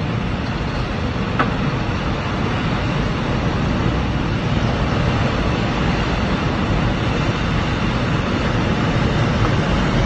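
Mountain-creek debris flow of mud, rock and water rushing down the ravine: a loud, steady low rumble that grows slowly louder.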